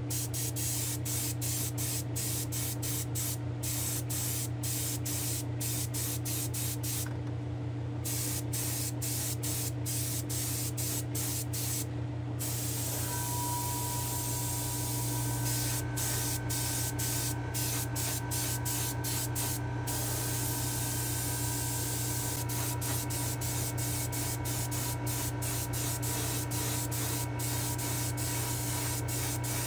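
Gravity-feed airbrush spraying white paint onto a small diecast truck body: a steady hiss of air and paint, briefly broken many times, over a steady low hum.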